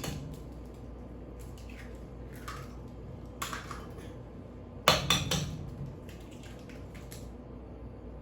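Eggs being cracked against a mixing bowl and added to creamed butter and sugar: a few faint clinks, then a sharp knock about five seconds in followed by a short run of clinks against the bowl.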